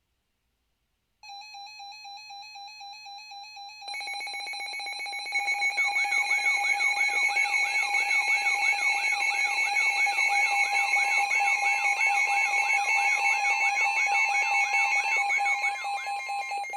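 Weather alert radio alarms going off for a severe thunderstorm warning. A steady high alarm tone starts about a second in, more tones join about four seconds in, and a warbling siren-like alarm then cycles about twice a second over them.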